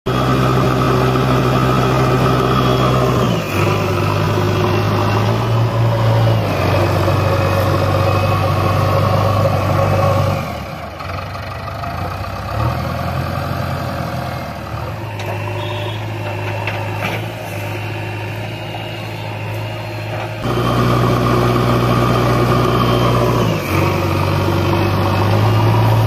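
Diesel engine of a JCB 3DX backhoe loader running hard as the machine struggles to drive out of deep mud, its pitch stepping up and down several times. It drops to a quieter, lower note for a long stretch in the middle, then comes back up loud near the end.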